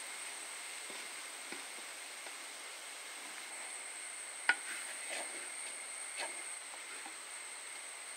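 Wooden spoon stirring shredded chicken in a clay pot, with soft scrapes and one sharp knock against the pot about halfway through, over a faint sizzle. A steady high chirring of insects runs underneath.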